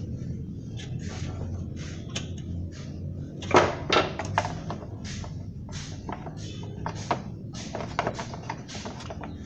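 Irregular clicks and knocks over a low steady hum, loudest a few seconds in.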